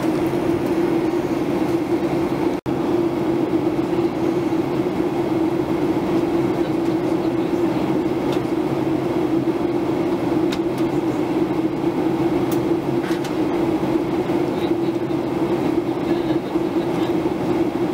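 Steady cabin noise of a Boeing 737-800 in flight: the constant drone of the jet engines and airflow, with a low steady hum running through it. The sound cuts out for an instant about two and a half seconds in.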